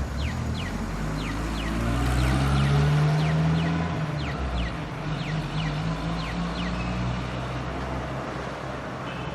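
Traffic light crossing signal beeping: short falling chirps in pairs, about one pair a second, stopping about seven seconds in. Underneath, street traffic with a vehicle engine rumbling, loudest about three seconds in.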